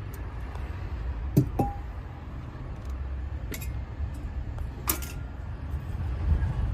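A few short, sharp clicks and light knocks, one with a brief ringing tone, over a steady low rumble.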